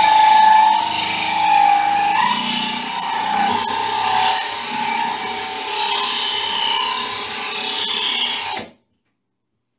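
DeWalt cordless drill boring a 3/4-inch hole through ceramic wall tile: a steady motor whir under a gritty grinding with a wavering squeal. It stops abruptly near the end.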